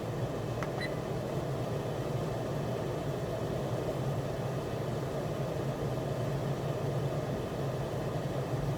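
Pet drying cabinet's blower running with a steady, even hum.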